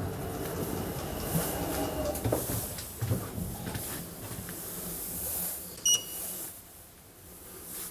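Elevator car doors of a 2015 KMZ lift sliding open with a mechanical whir and a few knocks. About six seconds in comes a short, high electronic beep as the car's floor button is pressed.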